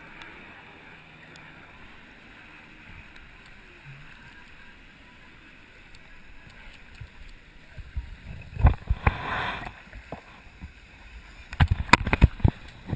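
Muffled underwater hiss heard through an action camera's waterproof housing. After the camera surfaces, water splashes loudly about eight seconds in, and near the end come sharp knocks and clicks of a hand handling the housing.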